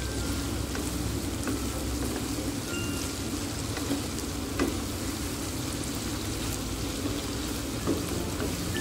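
Salted squid, jengkol and tempe stir-fry sizzling in a wok while a wooden spatula stirs it, with a couple of sharper clicks of the spatula against the pan, about halfway and near the end.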